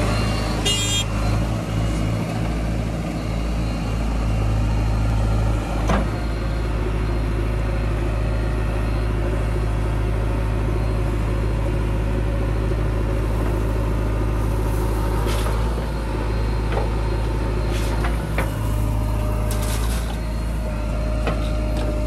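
Diesel engine of a JCB 3DX backhoe loader running with a steady low hum, with a few short sharp knocks about six, fifteen, eighteen and twenty seconds in.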